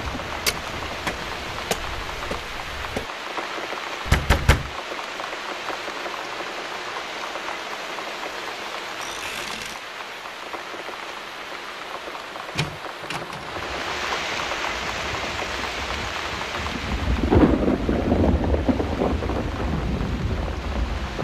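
Rain falling steadily, with three sharp bangs about four seconds in and another near the middle, and a loud thunder rumble building in the last few seconds.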